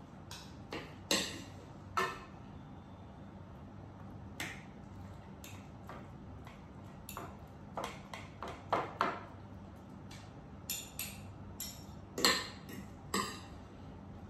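Irregular light clinks and taps of kitchen utensils against dishes and bowls during hand food preparation, about twenty scattered strikes with short ringing, the loudest near the end.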